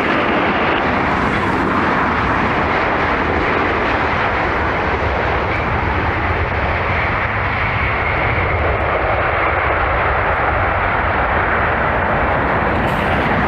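Boeing 787 Dreamliner's jet engines, a steady loud rushing noise with a faint whine coming through in the middle.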